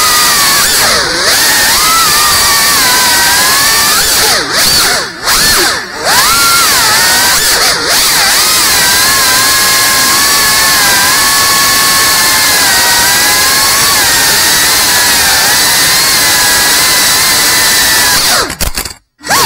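FPV quadcopter's brushless motors and propellers whining loudly over a steady rush of air, the pitch rising and falling with the throttle. The sound drops away briefly about five and six seconds in and cuts out almost completely near the end.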